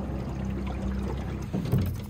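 Outboard motor of a small aluminium tin boat running with a steady low hum, with a brief louder bump near the end.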